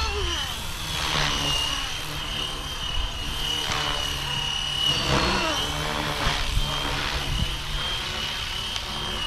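FlyWing FW450 V3 electric RC helicopter flying pirouette flips: a steady high whine from its motor and rotor, with a swooshing rise and fall of the blades several times as it flips.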